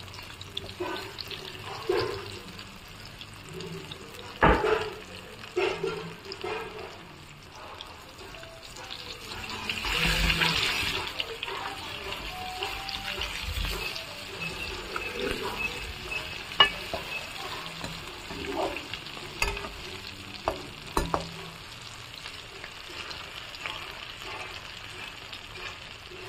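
Oil sizzling and bubbling as turmeric-coated vegetable cubes fry in a metal wok, with occasional sharp knocks and scrapes of a slotted metal spoon against the pan as the pieces are stirred.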